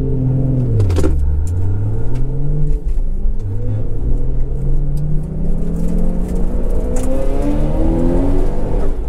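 Toyota Supra MKIV's 2JZ-GTE single-turbo straight-six accelerating hard in a roll race, heard inside the cabin. Its pitch dips over the first second, then climbs, breaks briefly about three seconds in at a gear change, and rises steadily again.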